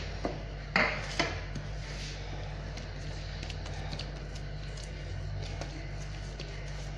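Hands handling soft bread dough on a marble counter: two short knocks about a second in, then faint soft handling sounds over a steady low hum.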